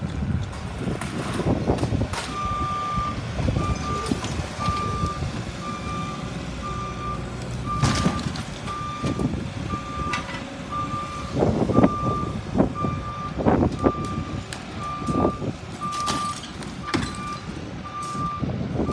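A vehicle's reversing alarm beeping at a steady, even rate, starting about two seconds in, over a low engine rumble. Several louder knocks sound in the middle.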